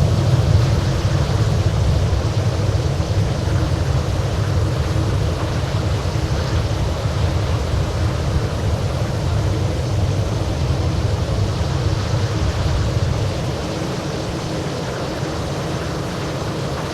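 Boeing 737 on its landing roll: a steady low engine and runway rumble that slowly fades as the jet slows.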